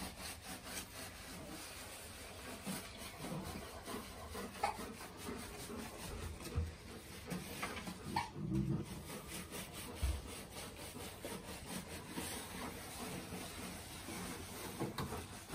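Hands scrubbing and rubbing a wet Alaskan Malamute's soaked fur in bathwater: a continuous swishing, rubbing sound made of many short strokes, with water sloshing. Twice near the middle the dog gives a brief whine.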